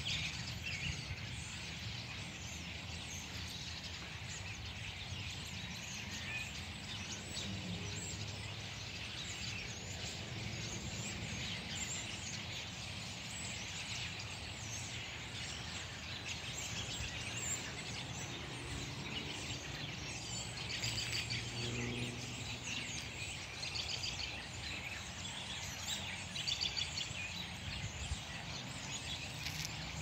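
A large flock of birds chirping and calling together from the treetops, a dense, continuous chatter of many overlapping small calls, over a steady low background hum.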